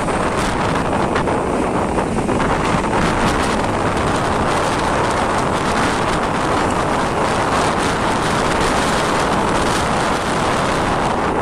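Strong sea wind buffeting the microphone in a steady, loud rush, mixed with the wash of high waves.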